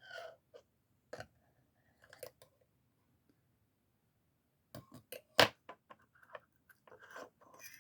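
Small metal clicks and snaps from a Leatherman Micra keychain multi-tool being handled and its implements opened, scattered at first and then coming in a quick cluster about five seconds in, with one sharp snap the loudest.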